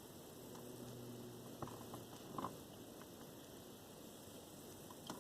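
Faint handling noise: a few light clicks and rustles of small parts, with the clearest about one and a half and two and a half seconds in, over a low steady hum.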